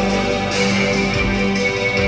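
Live darkwave band music playing loud, with an electric guitar over a steady held low note.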